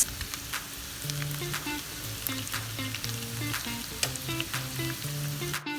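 Tofu sisig frying in a pan, a steady sizzle with short scraping clicks as it is stirred and mixed.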